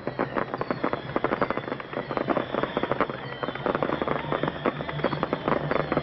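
Fireworks display crackling in a dense, rapid stream of pops, with faint whistles above it.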